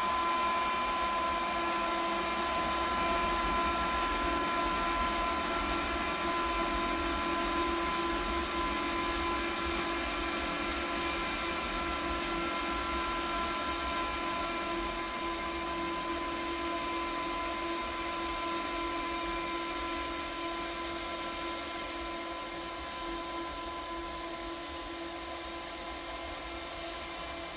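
Electric locomotive moving slowly away, with the steady whine of its traction equipment and cooling fans in several fixed tones over a hiss. The sound fades a little from about two-thirds of the way in.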